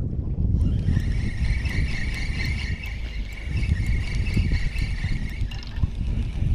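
Wind buffeting the microphone throughout, with a steady high buzz that starts about half a second in and stops near the end.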